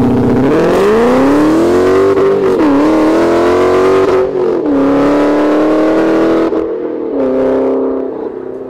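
Car engine revving: its pitch climbs over the first two seconds, then dips and steps down a few times before fading near the end.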